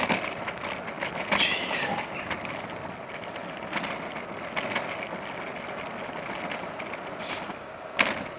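Bicycle rattling over rough, cracked road tarmac, with steady tyre and wind noise and many small knocks, and one sharp jolt near the end as it hits a bump.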